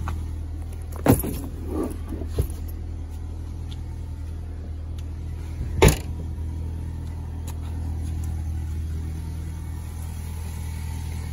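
A car idles with a steady low hum, while luggage is handled at its trunk: a few sharp knocks in the first seconds and a single loud thud about six seconds in.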